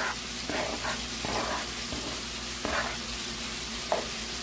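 Steady frying sizzle from two skillets, pork chops in one and diced tomato and peppers in the other, while a plastic spatula scrapes diced green tomatoes off a plastic cutting board and stirs them into the pan, with a short knock near the end.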